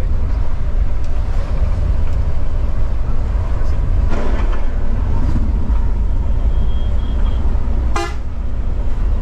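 Scania coach on the move, its engine and road rumble steady and loud, with a short horn blast about eight seconds in.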